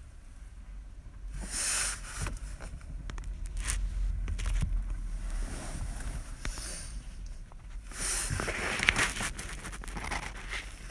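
Wind buffeting the microphone in gusts over a steady low rumble, with scattered crackles and clicks.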